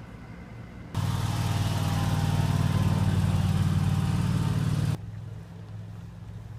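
A motor running with a steady low hum. A louder, hissier stretch of it cuts in about a second in and stops abruptly about four seconds later.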